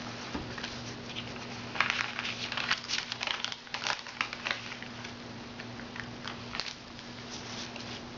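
Sheet of origami paper being folded and creased by hand: a run of crackling, rustling strokes, densest from about two to five seconds in, over a steady low hum.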